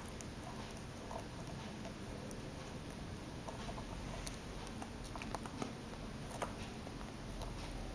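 Chinchilla gnawing and nibbling a camera strap held in its paws: irregular faint clicks from its teeth, over low rumbling handling noise from the camera.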